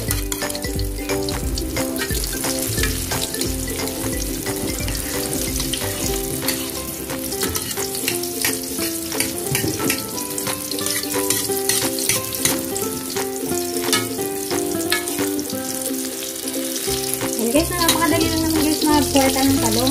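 Egg-coated grilled eggplant (tortang talong) frying in hot oil, a steady crackling sizzle, over background music whose bass drops out for a stretch in the middle.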